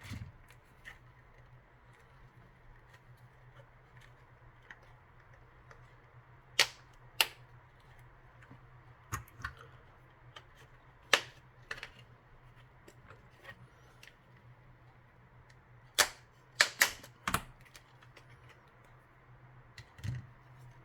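Sharp, scattered clicks and taps of small tools and plastic phone parts being handled while a Samsung Galaxy Folder 2 flip phone is taken apart, over a low steady hum.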